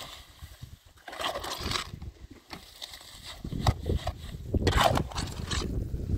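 Shovel scraping and scooping through cement mix in a metal wheelbarrow, in uneven strokes, with a longer, louder spell of scraping over the second half.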